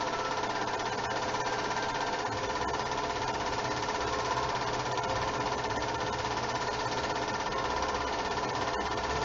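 8mm film projector running: a steady mechanical whir with rapid fine ticking from the film advancing through the gate.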